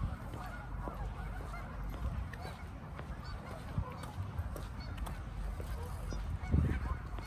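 A flock of Canada geese honking in the background, many calls overlapping, over a steady low rumble, with a louder low thump about six and a half seconds in.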